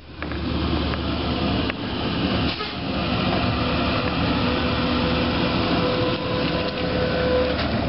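Articulated M-A-N electric trolleybus driving past and pulling away around a curve: the hum of its running gear and tyres, with a steady whine from its electric drive coming in about three seconds in.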